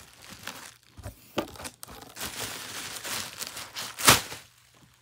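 Plastic bubble wrap being crinkled and pulled up out of a cardboard box, a rustling crinkle with a few sharp crackles, the loudest about four seconds in.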